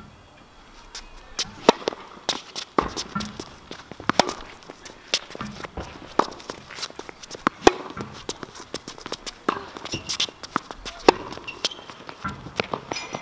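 Tennis rally on an outdoor hard court: a string of sharp pops as the ball is struck by rackets and bounces off the court, a loud hit every second or two, with footsteps in between.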